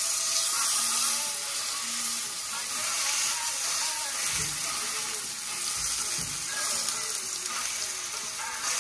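Seasoned chicken breast frying in hot olive oil in a cast iron skillet: a steady sizzle, with two soft low thumps about four and six seconds in.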